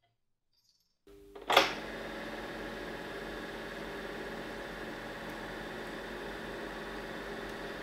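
Bauer T 141 Sound Super 8 projector starting up: a short hum about a second in, a sharp click, then the mechanism running with a steady mechanical drone.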